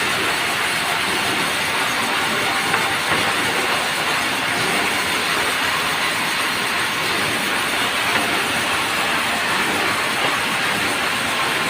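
Semi-automatic sawmill running, its saw cutting through merbau wood with a steady, unbroken noise.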